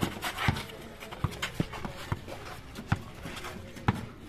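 Basketball bouncing on a concrete court as it is dribbled: a string of thuds at uneven spacing, a little under two a second.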